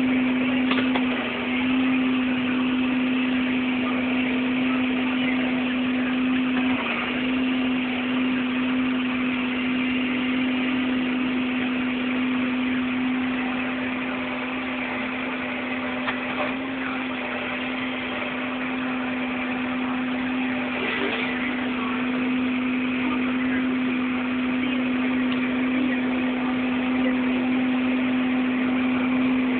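Diesel engine of harvest machinery running at a steady speed: a constant drone with an even rushing noise over it.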